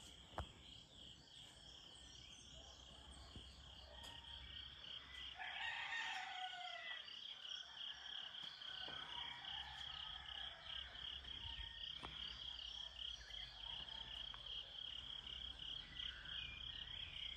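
A rooster crows once, about six seconds in, over a steady, rapidly pulsing high chirping chorus of insects; a single sharp click sounds just after the start.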